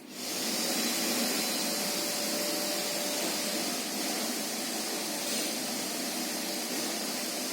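Vacuum cleaner switched on, its motor coming up to speed within half a second and then running steadily with a loud, even airflow noise.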